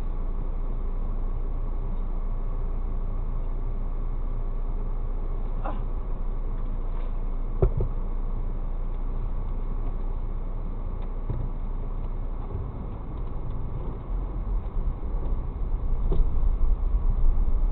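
Steady low rumble of a car idling, picked up by a dashcam microphone inside the cabin, with a single short knock about seven and a half seconds in. From about fourteen seconds in the rumble grows louder and uneven as the car moves off.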